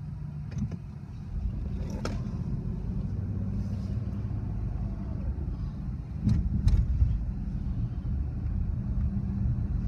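Car driving, heard from inside the cabin: a steady low rumble of engine and road noise that grows about a second in as the car pulls away from the light. A few short, sharp knocks sound over it, two close together about six seconds in.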